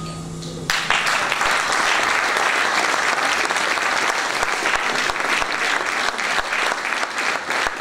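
The band's last held chord cuts off under a second in, and the audience breaks into applause that carries on steadily.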